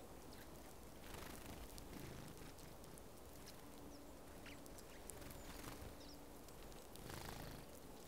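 Faint short chirps of Eurasian tree sparrows feeding, with light ticks from pecking at seeds, over a low outdoor hiss. A faint low hum comes in for a couple of seconds midway.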